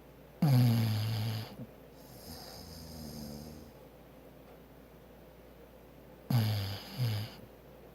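Bulldog snoring: two loud, low snores about six seconds apart, the second broken into two quick parts, with a softer breath out between them.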